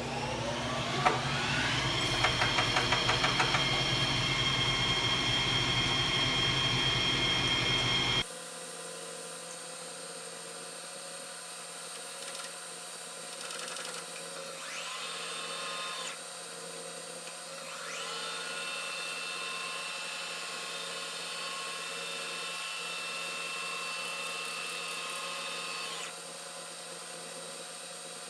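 Metal lathe spinning up with a rising whine, then running steadily while turning a step on a brass pilot bushing, with a rapid run of clicks about two seconds in. About eight seconds in the low end drops out abruptly and the running sound goes quieter, with its tones shifting pitch a few times.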